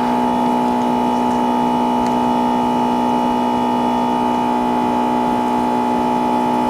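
A steady electrical hum made of many even tones, holding at the same pitch and level throughout.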